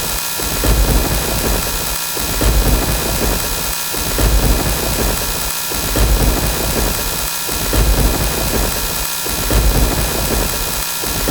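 Thunder sound effect playing on a loop: a low rumble of thunder that cuts off and restarts about every 1.8 seconds.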